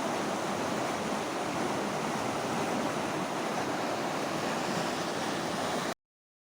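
Steady rush of water flowing along an irrigation canal, cutting off abruptly to silence near the end.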